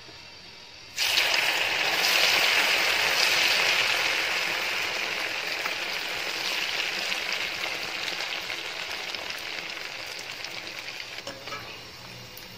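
Idli cubes going into hot oil for deep frying: the oil starts sizzling loudly all at once about a second in, then slowly dies down to a lighter crackle as the cubes fry.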